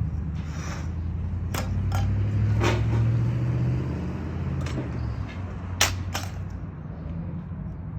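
Demolition debris knocking and banging as it is thrown out, several sharp hits with the loudest about six seconds in, over the steady low hum of an engine running.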